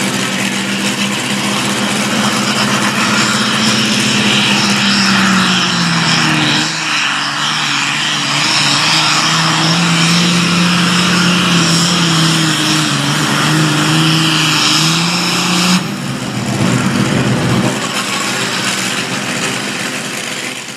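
Super Farm class John Deere pulling tractor's diesel engine running hard under load during a pull, its steady note dipping and recovering about a third of the way through. The sound changes abruptly about three quarters of the way in, as at a cut to another run.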